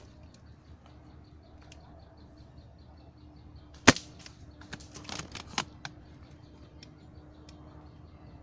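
A single sharp airsoft rifle shot a little under four seconds in, followed by a scatter of lighter cracks and snaps over the next two seconds.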